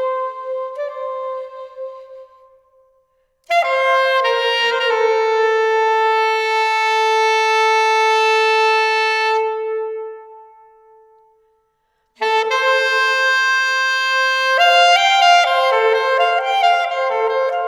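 Solo saxophone improvising inside a freight elevator. A short phrase fades out, then one long held note rings and dies away, and after a pause a quicker run of changing notes begins.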